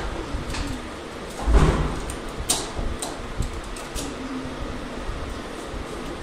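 Hands and a utility knife cutting and tearing an old string pocket net off a snooker table's metal pocket iron: scattered scrapes, snips and clicks, with a heavy thump about a second and a half in.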